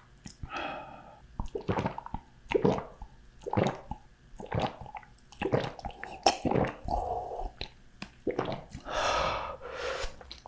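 Close-miked wet, squishy chewing and mouth sounds, in separate bursts about once a second.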